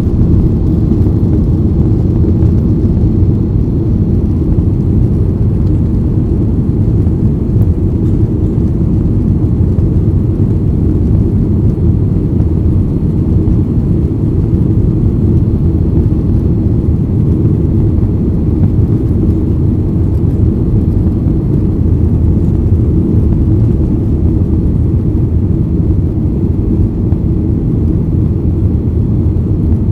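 Steady low rumble of engine and airflow noise heard inside a jet airliner's passenger cabin in flight.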